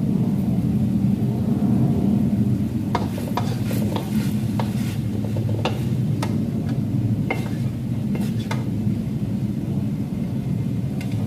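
Spatula scraping and clinking against a wok as the stir-fried tempeh and long beans are scooped out, with several sharp scrapes between about three and eight and a half seconds in. A steady low hum runs underneath.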